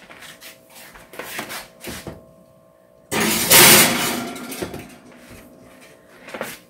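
Cast iron skillet going into a hot oven: a few light knocks, then about three seconds in a sudden loud rush of noise from the oven door and rack that fades over about a second and a half.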